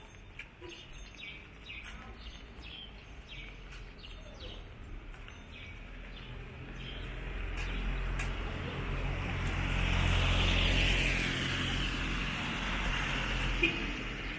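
Birds chirping in short calls, then a car passing on the wet road, its engine and tyre hiss swelling to a peak about ten seconds in and easing off. A single sharp click near the end.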